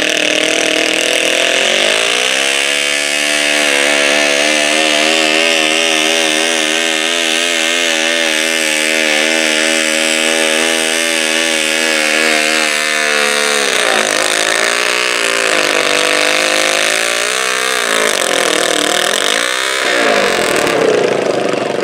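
Modified garden tractor engine under full load pulling a weight-transfer sled. The revs climb about two seconds in and hold high and steady. In the second half they fall and surge up and down several times.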